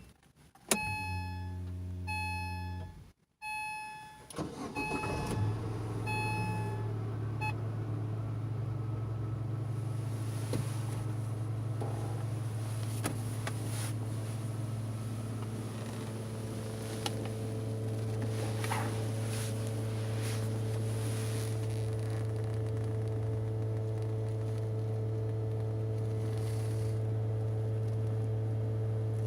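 Chevrolet Lanos switched on and started: evenly repeated beeps over a short low hum, then about four seconds in the engine cranks, catches and settles into a steady idle with a constant low hum. The hum is the fuel pump, which the owner thinks is failing even though its strainer was recently replaced.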